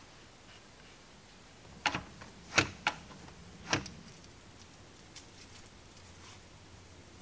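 A few sharp metallic clicks and clinks, four or five of them between about two and four seconds in, as a gloved hand handles the milling machine power feed's motor and bracket.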